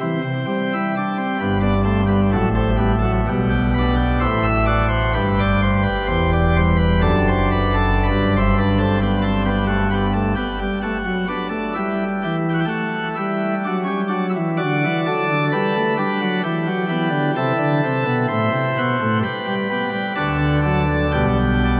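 Church pipe organ playing a recital piece in full chords of held notes. Deep pedal bass notes sound under the chords, drop out about halfway through and come back in near the end.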